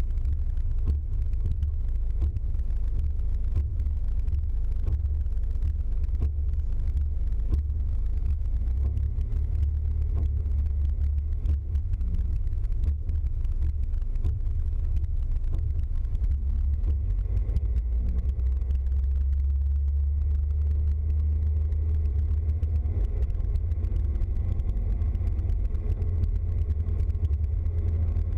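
Steady low engine and road drone heard from inside a moving vehicle's cab as it drives along a wet road.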